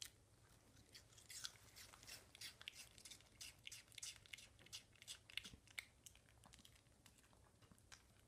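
Yorkshire terrier biting and chewing a piece of raw apple. A sharp snap as it takes the bite is followed by a quick run of crisp crunches for about five seconds, which then thin out to a few last ones.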